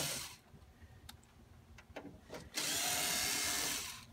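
Cordless electric screwdriver backing out the screws of a copier's rear cover: a run that stops just after the start, then another of about a second and a half from about two and a half seconds in, its motor whine rising as it spins up. A few light clicks fall between the runs.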